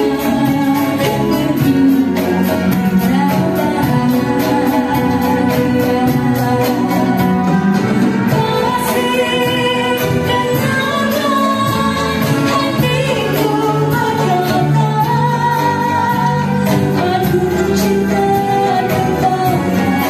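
A woman singing into a microphone, backed by a live band of strings and percussion, amplified through a PA system.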